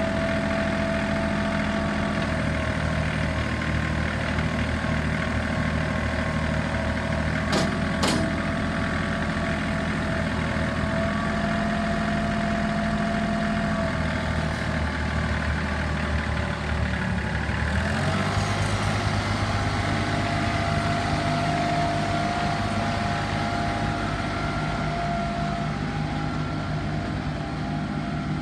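Kubota L3830 tractor's four-cylinder diesel engine running steadily, with two sharp clicks a little under eight seconds in. At about eighteen seconds the engine note steps up to higher revs.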